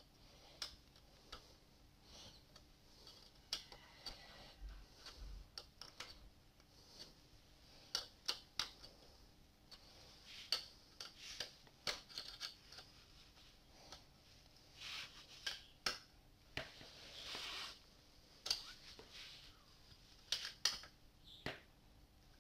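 Hex key turning a socket-head screw into a small wooden disc clamped in a metal vise: irregular light clicks and short scrapes as the key is worked and repositioned.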